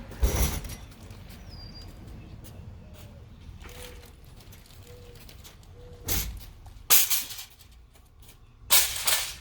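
A sharp knock just after the start, then three short loud handling noises in the second half, about a second apart, with faint short chirps between them.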